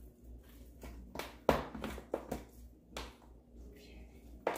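Hands turning over seasoned raw pork neck bones in a plastic container: a scatter of soft knocks and rustles of meat and bone against the plastic, the loudest about one and a half seconds in.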